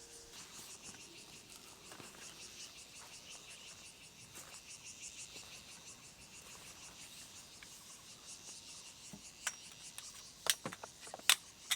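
Insects chirping in a steady, rapidly pulsing chorus, with a few sharp clicks near the end.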